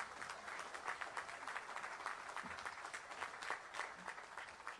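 Large crowd applauding, a dense patter of many hands clapping that thins out near the end.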